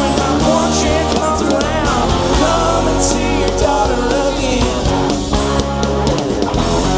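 Live rock band playing: guitars over bass and drums, with a man singing.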